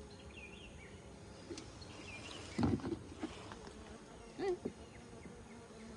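Honeybees from an opened hive buzzing as a faint, steady low hum. A brief thump about two and a half seconds in is the loudest sound.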